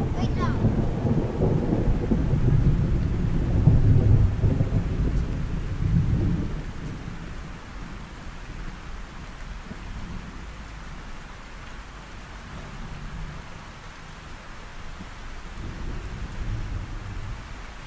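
Thunder rumbling over steady rain for about the first six seconds, then the rain goes on alone, quieter and even.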